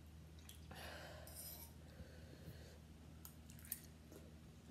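Near silence: room tone with a steady low hum and a few faint clicks.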